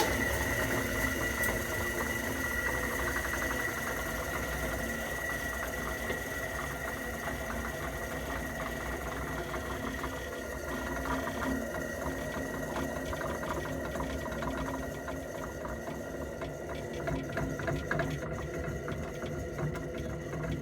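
Kitchen range hood fan motor, over 30 years old, running with a steady whine and a fast, fine rattle: the abnormal noise of a worn-out motor at the end of its life, a sign the hood should be replaced.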